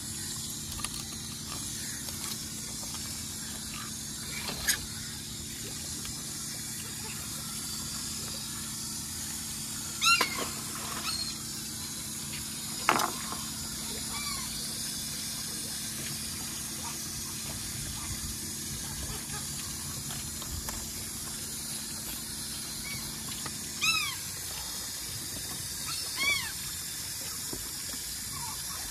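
Steady hiss of water from a hose spray nozzle during fish cleaning, with a sharp knock or two, like a fillet knife hitting the plastic cutting board. Over it come a few short, high calls that fall in pitch, one after another.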